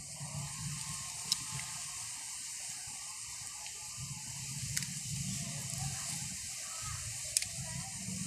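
A small cutter and blade being worked on a bougainvillea graft: three short sharp clicks, about a second in, midway and near the end, over a steady hiss and patchy low rumbling.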